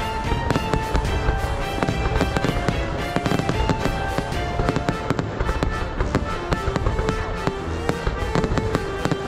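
Fireworks going off in a dense, continuous series of sharp bangs and crackles, several a second, with music playing underneath.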